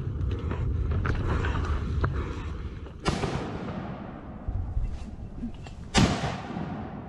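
Two sharp, loud bangs of combat fire about three seconds apart, each trailing off in an echo through the woods, after a stretch of low rumbling and rustling as soldiers push through undergrowth.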